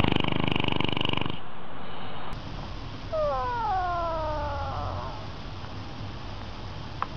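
A loud, rapid buzzing that stops about a second and a half in, then a domestic cat's single long meow, falling in pitch and lasting about two seconds.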